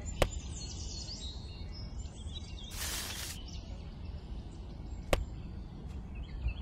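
Two sharp taps, about five seconds apart, as plastic toy strawberries are set down on the plastic bed of a toy trailer, with a short hiss between them. Faint bird chirps sound over a low steady hum.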